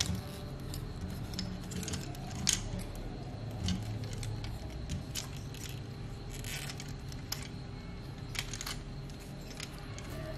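Plastic parts of an Optimus Prime Transformers figure clicking and snapping as its wheeled arm pieces are handled and fitted: scattered, irregular clicks. Steady background music underneath.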